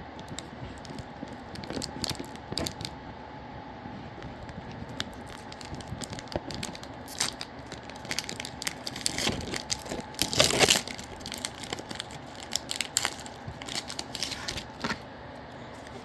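Foil Pokémon booster pack wrapper being handled, crinkled and torn open, in a run of short crackles with the loudest tearing burst about ten and a half seconds in.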